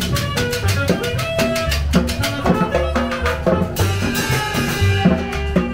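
Live Latin dance music from a street combo: an upright double bass and a drum kit with timbales keeping a steady, even beat. A held melodic line comes in about two-thirds of the way through.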